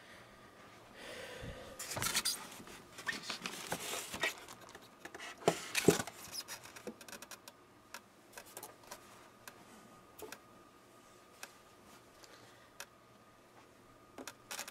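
Hands handling objects at close range: a short soft rustle, then a busy run of clicks and light knocks with the loudest knock about six seconds in, thinning out to scattered clicks.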